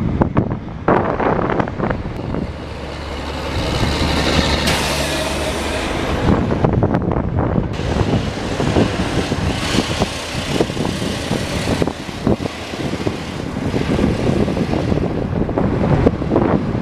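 Highway traffic passing: heavy diesel dump trucks and cars, with tyre noise and engine drone. A truck's steady low engine hum swells and passes a few seconds in.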